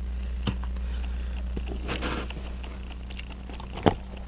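Small objects handled and set down on a workbench: a soft click, a brief rustle, then one sharp click near the end, over a steady low hum.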